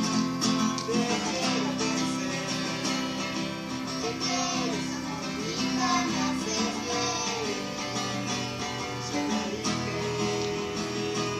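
Acoustic guitar strummed in a song, with a melody line gliding up and down above the chords.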